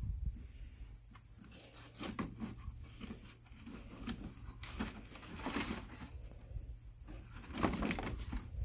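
Puppy rummaging among cardboard boxes and plastic toys in a plastic sandpit: irregular rustling and scraping of cardboard, with a few light clicks and knocks of paws and toys on the plastic.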